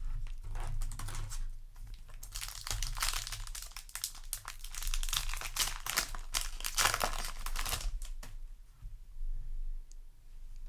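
Foil booster-pack wrapper crinkling and cards rustling as they are handled, in irregular bursts that are loudest in the middle, over a steady low hum.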